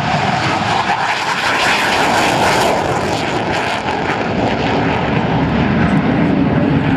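F/A-18 Hornet fighter jet's twin engines running loud and steady.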